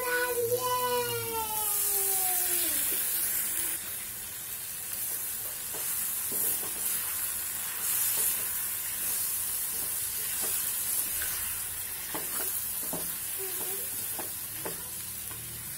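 Capsicum and freshly added chopped tomatoes sizzling in hot oil in an aluminium kadai, with a spatula stirring and knocking against the pan. A falling pitched tone fades out over the first three seconds.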